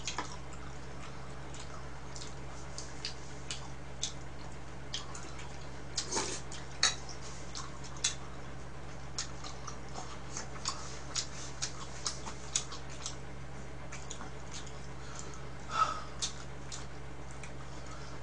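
Scattered light clicks and taps of chopsticks against bowls and plastic food containers while eating, at irregular intervals, over a steady low hum.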